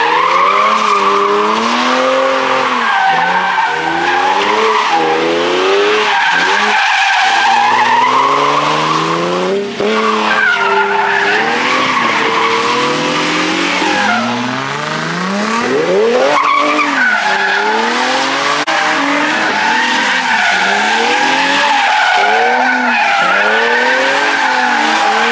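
A car doing a sustained burnout or donuts: tyres squealing continuously while the engine revs climb and drop again and again, with one long steep rev climb about sixteen seconds in.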